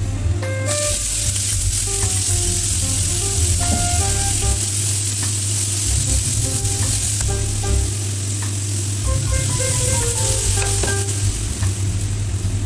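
Chicken breast pieces and meatballs sizzling in hot oil in a frying pan, the sizzle starting suddenly about a second in as they are tipped into the pan. They are then stirred with a slotted spatula while the frying goes on.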